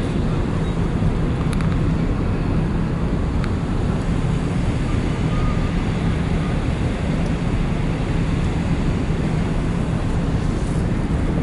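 Steady low drone of the car ferry Shin Ishikari's machinery on the open deck, with a constant low hum and wind noise on the microphone.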